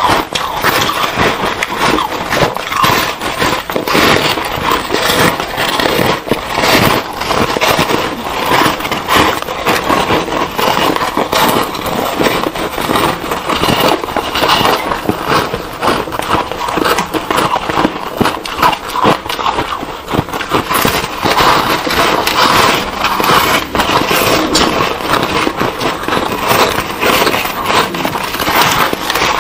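Foam ice being bitten and chewed, close-miked: a dense, continuous run of crisp crunches with no pauses, two eaters' chewing layered together.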